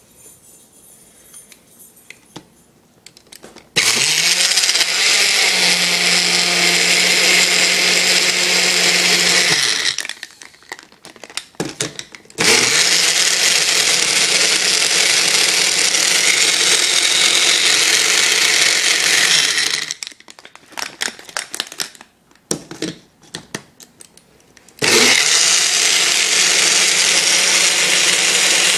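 Countertop blender blending a smoothie, run in three bursts of several seconds each. The motor spins up with a rising tone at each start. Short knocks and rattles are heard in the pauses between bursts.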